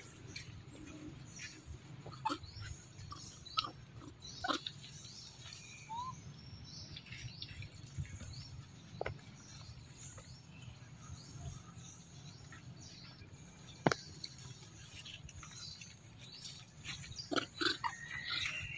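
Scattered short, high animal squeaks and chirps over a low steady hum. There is a single sharp click about fourteen seconds in, and the calls come thicker near the end.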